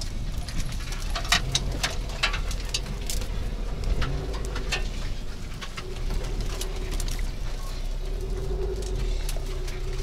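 Birds calling, over a steady low rumble and scattered sharp clicks.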